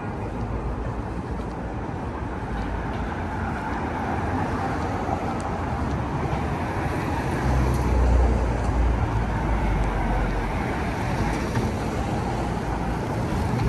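Steady city traffic noise, with a low rumble that swells for a few seconds about halfway through and then eases off.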